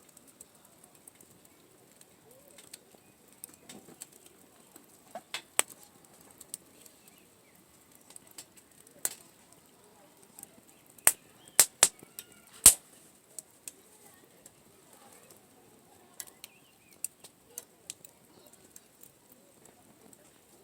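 Wood bonfire crackling, with irregular sharp pops and snaps; the loudest cluster of pops comes a little past the middle.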